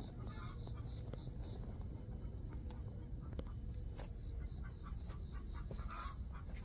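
Outdoor ambience: repeated high chirping, about five chirps a second, fading out early and coming back later, over a steady low rumble, with a few sharp clicks.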